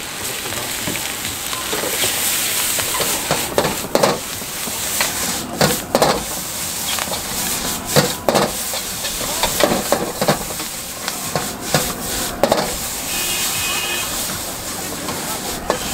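Noodles sizzling in a wok over a gas flame while a metal ladle stirs them, clacking and scraping against the wok at irregular intervals.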